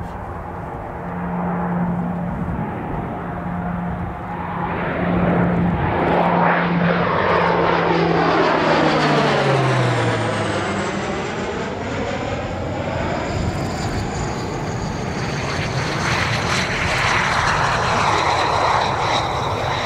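A fixed-wing aircraft flying past, its steady engine drone falling in pitch about halfway through as it passes. It is loudest around then, and the sound swells again near the end.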